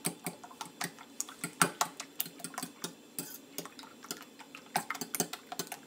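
Metal fork beating an egg and cream mixture in a glass dish, clicking and scraping against the glass in quick, irregular strokes, several a second.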